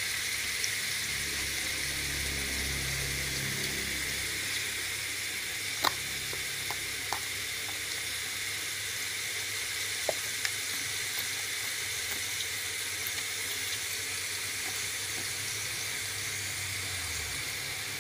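Slices of overnight-marinated beef satay frying in a little oil in a pan, sizzling steadily. A few sharp pops of spattering oil come through, the loudest about six seconds in.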